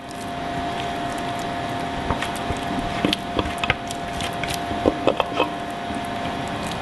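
Thick basil pesto being scraped out of a plastic food processor bowl into a ceramic bowl: irregular light knocks and scrapes, several between about two and five and a half seconds in, over a steady background hum.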